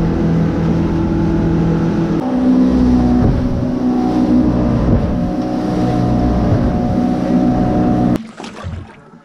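V4 outboard motor running at speed under load, pushing the boat along with a steady drone. Its pitch shifts about two seconds in, and the sound cuts off abruptly near the end.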